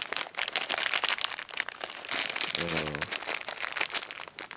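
Plastic bags of wooden game pieces crinkling and rustling as they are handled, in a continuous run of small crackles.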